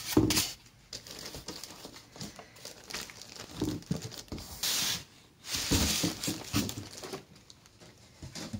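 Packaging crinkling and rustling in irregular bursts as a sewing machine's box is emptied.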